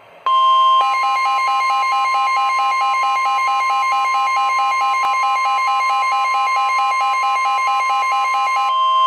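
Emergency Alert System attention tone: a loud, steady electronic alarm tone that signals an emergency warning is about to be broadcast. A single tone starts, a second pulsing, buzzing tone joins it about half a second in, and that second tone drops away near the end.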